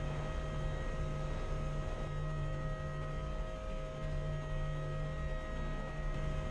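Steady background hum of an indoor ice rink, a low drone with a few thin, steady higher tones over it.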